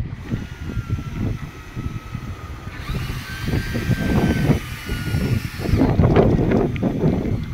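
Heavy game-fishing reel whirring under strain during a fight with a big fish: a steady high whine that grows louder and brighter about three seconds in and drops away about six seconds in, over a rough low rumble.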